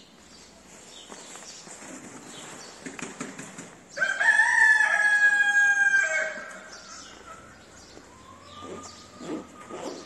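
A rooster crowing once, a loud call of about two seconds starting about four seconds in, held on one pitch and dropping at the end. Another faint drawn-out call follows near the end.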